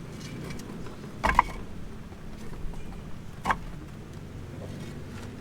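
A few sharp knocks over a low steady background hum: a quick double knock about a second in and a single knock about two seconds later.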